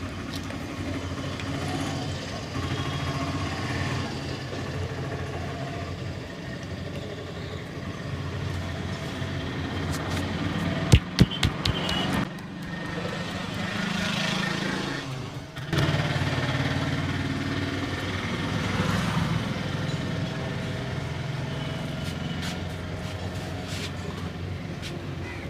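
Street traffic noise with a vehicle engine running steadily, and a quick run of four or five sharp cracks about eleven seconds in.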